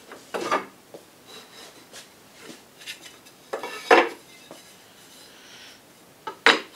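Wooden picture-frame stock being handled on a mitre saw table, with the saw switched off: three sharp knocks and clatters of wood against the saw's fence and table, the loudest about four seconds in, with light rubbing and ticks between.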